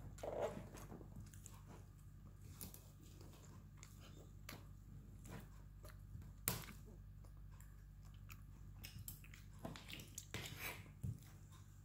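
Knife and fork cutting roast leg of lamb on a plastic cutting board: faint scraping and crunching through the crisp roasted meat, with a few sharper clicks of the blade against the board, the loudest about halfway through.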